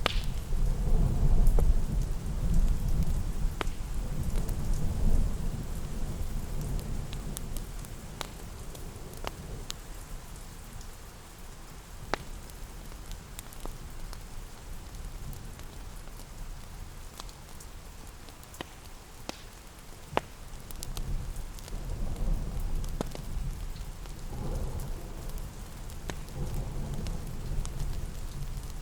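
Steady rain with rolling thunder. One deep rumble is loudest in the first few seconds and fades away, and a second rumbles in about two-thirds of the way through. Occasional sharp fire crackles sound over the rain.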